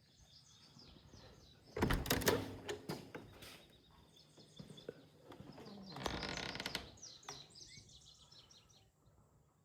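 Birds chirping, with two louder stretches of noise filled with clicks and knocks, one about two seconds in and one about six seconds in.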